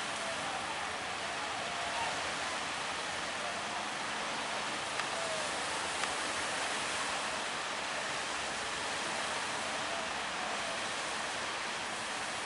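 Steady rushing hiss of rough, breaking water and surf churning at the harbour mouth, heard from a distance.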